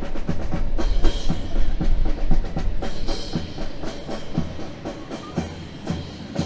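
Drum-led music with a steady beat of about two strong hits a second, playing as accompaniment to a rifle drill display. It gets somewhat quieter after about four seconds in.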